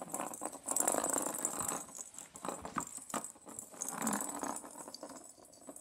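A kitten playing with a circular plastic track toy: the balls rattle around the track, with light jingling. The rattling is busiest about a second in and again around four seconds.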